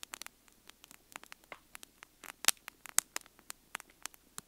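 Wood campfire crackling, with irregular sharp pops; the two loudest come about two and a half and three seconds in.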